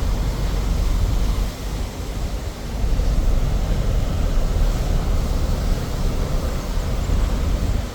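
Steady low rumble of a car driving, with road and wind noise.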